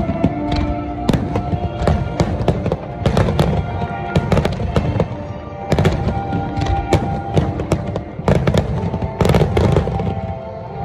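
Aerial firework shells bursting in quick succession, a dense run of bangs and crackling stars that is heaviest about nine seconds in, over background music.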